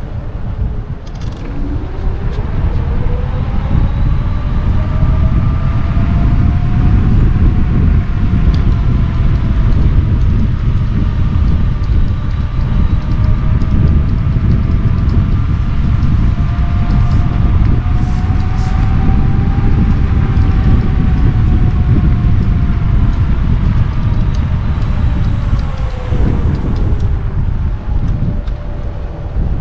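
Kaabo Wolf King GT electric scooter under way: its dual hub motors whine, the pitch rising over the first several seconds as it speeds up, wavering with speed, and dropping near the end as it slows. Under the whine is a loud, steady low rumble of wind and road.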